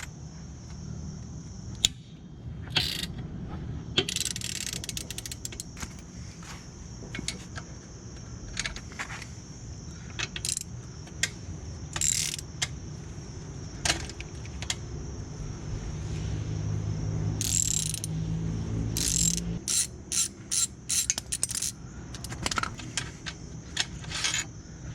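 Ratchet socket wrench clicking in short irregular runs as bolts are loosened, over a low steady hum.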